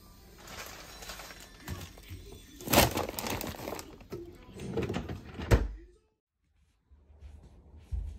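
Handling noises at a refrigerator freezer drawer: a plastic zip-top bag of food rustling and knocking as it is packed in, then a sharp thump about five and a half seconds in as the drawer is shut.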